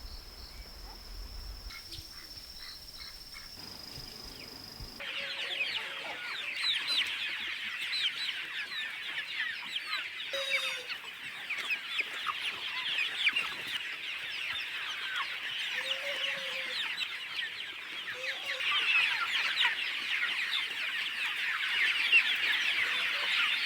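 Many chickens calling at once, a dense chorus of short, high, falling chirps with a few lower clucks mixed in. It starts suddenly about five seconds in and gets louder near the end. Before that is a quieter stretch with a steady high tone.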